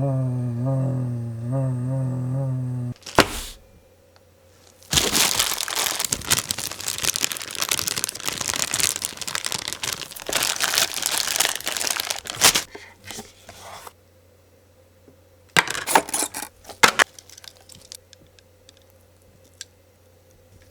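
A low, wavering drone for the first three seconds, cut off by a sharp click; then several seconds of loud crinkling and tearing, like plastic packaging being handled, and a few sharp clicks near the end.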